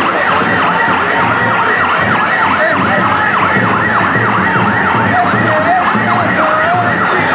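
A siren wailing in quick rise-and-fall sweeps, about four a second, over steady crowd noise.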